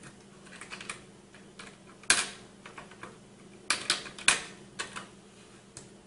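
Scattered light metallic clicks and taps, about seven, the loudest about two and four seconds in, from fingers working the metal load lever and retention plate of an LGA 1150 CPU socket.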